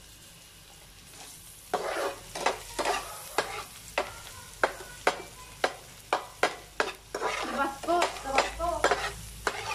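Chopped garlic sizzling in oil in a frying pan, stirred with a spatula that scrapes against the pan in quick strokes, a few a second, starting about two seconds in.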